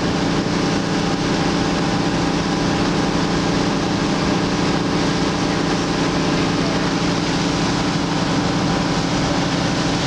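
A tour boat's engine running steadily underway, heard on board as a constant low drone with several steady tones, over the even rush of its wake.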